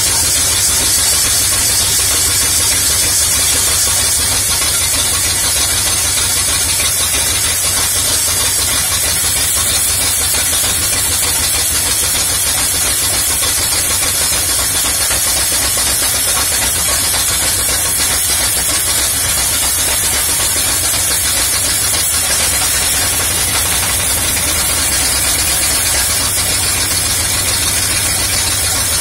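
1974 Condor II motorhome engine idling steadily with its air cleaner off, heard close up in the open engine bay, with a steady hiss over the top.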